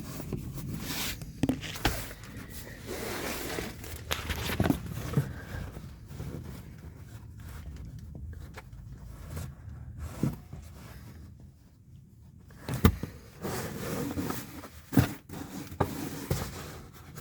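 A car dehumidifier bag being handled and pushed into place on a van's dashboard: uneven rustling and scraping, with a few sharp clicks and knocks of plastic, the sharpest about two seconds in and twice more near the end.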